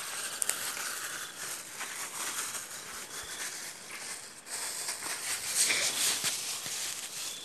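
Leafy branches and plastic bags rustling and crinkling as they are handled, a dense run of small crackles that grows louder about five and a half seconds in.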